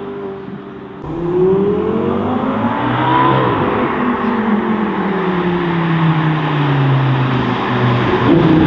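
Lamborghini Gallardo V10 engine revving up hard for about two seconds, then falling in pitch as the car lifts off and slows on its approach, with a short rise again near the end. In the first second, before a cut, a different car's engine holds a steady note.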